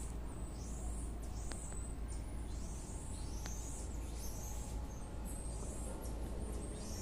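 A small monkey giving rapid, high-pitched squeaky chirps, many short falling calls in quick succession, over a steady low rumble.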